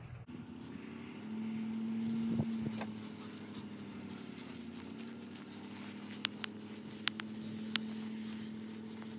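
Chevrolet Suburban's engine running at low speed under load as it tows a heavy wooden chicken coop on shed-dolly wheels, its steady hum swelling for a couple of seconds about a second in. A few sharp clicks come between about six and eight seconds in.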